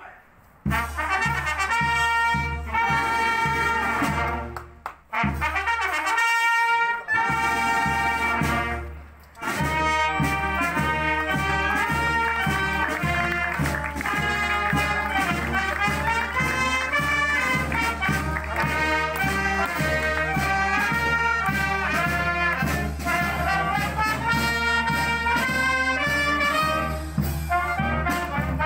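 Brass band playing: a few opening phrases broken by short pauses, then a continuous tune from about ten seconds in.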